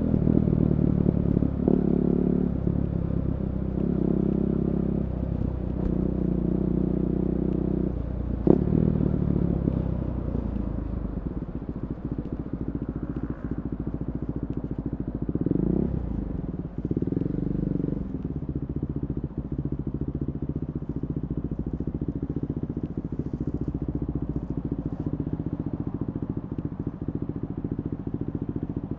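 KTM 390 Duke's single-cylinder engine through an Akrapovic slip-on exhaust with the catalytic converter removed. It runs at higher revs in pulsing blips for the first eight seconds or so, gives a sharp crack about eight and a half seconds in, then settles to a lower, lumpy idle with one quick rev up and back down around the middle.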